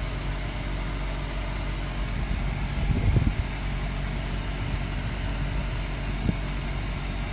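Steady low rumble and hiss of a running motor, with a brief louder low swell about three seconds in.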